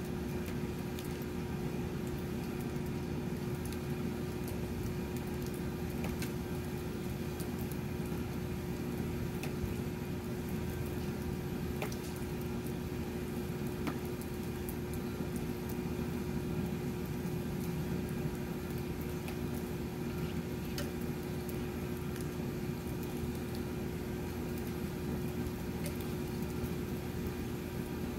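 Light rain falling, with scattered drops ticking sharply close by, over a steady low hum.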